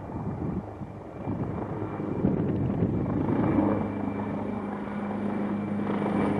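Aircraft engine drone: a steady hum that comes in about halfway through over gusty wind noise on the microphone and slowly grows louder.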